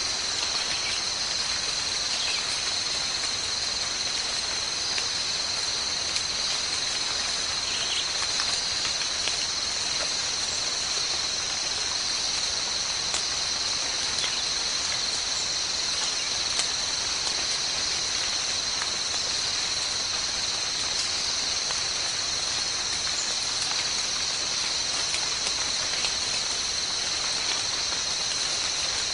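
Steady, high-pitched drone of insects in the forest, holding two pitches without a break.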